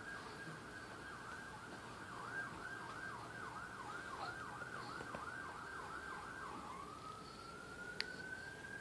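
Faint emergency-vehicle siren: a steady wail switches to a fast up-and-down yelp about two seconds in, then glides back into a rising wail near the end.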